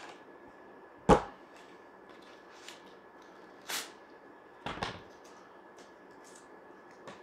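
Handling noises as a small cardboard candy box and its lollipop are opened: a sharp knock about a second in, a short scrape near the middle, then a couple of softer taps and rustles.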